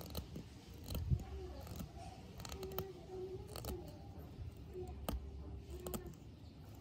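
Small knife blade whittling the wooden end of a tobacco pipe by hand: an irregular series of sharp clicks and short scrapes as the blade bites into the wood.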